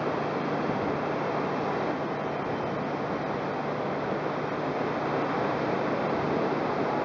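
Steady rush of wind over the microphone on a ship's open deck: an even noise that stays at one level, with no distinct events.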